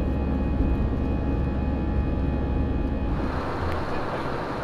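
Jet airliner's turbofan engines heard from inside the cabin on the runway: a steady low rumble with a thin, steady whine. About three seconds in, it changes abruptly to an even cabin hiss.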